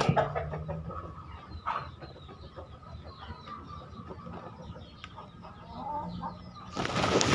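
A chicken sick with ngorok, a snoring rattle in its breathing, clucking and making small calls. Near the end comes a brief loud scuffing noise.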